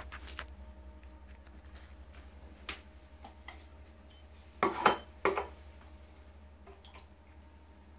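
Plastic cup and black plastic bucket knocking together as joint-compound powder is prepared: two loud sharp knocks about five seconds in, with a few lighter clicks and handling sounds around them over a steady low hum.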